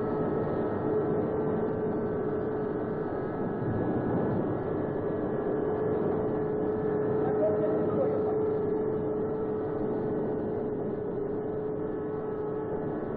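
Steady machinery hum: a constant mid-pitched tone with fainter higher tones over an even noise, unchanging throughout.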